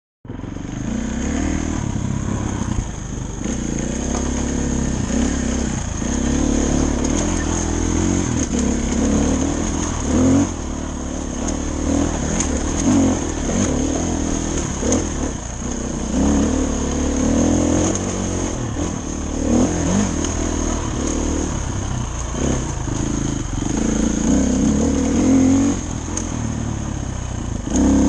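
Dirt bike engine running under load on a forest trail, revving up and down with the throttle every few seconds.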